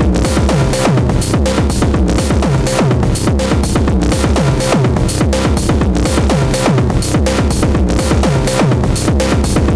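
Electronic drum pattern played on an Elektron Digitone FM synthesizer: a steady techno beat of low drum hits that fall in pitch, with bright hi-hat ticks.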